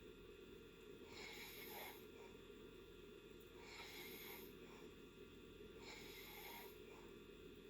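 A sleeping person snoring softly: three faint, breathy snores, one about every two and a half seconds, in a slow, even rhythm.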